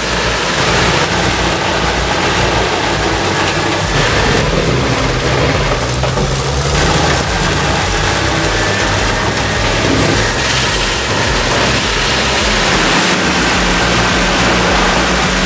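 Morbark 30RXL whole-tree chipper with a 1,050-horsepower engine running steadily under load, chipping timber.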